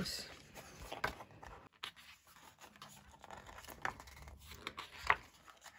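Faint rustling and light taps of a K-pop album's paper packaging and pages being handled and turned, with a sharper click about five seconds in.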